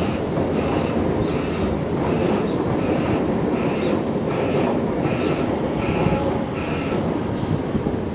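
Irish Rail DART electric commuter train running past over the level crossing, a steady rumble of wheels on the rails. A short high tone repeats about twice a second until near the end.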